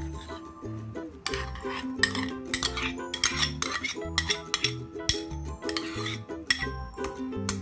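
A spoon scraping and clinking against a small ceramic bowl as mashed pumpkin is scraped out into a stainless steel mixing bowl: many short clicks and scrapes starting about a second in, over background music.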